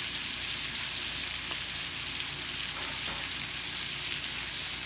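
Steak searing in butter in a hot skillet, the fat sizzling in a steady hiss.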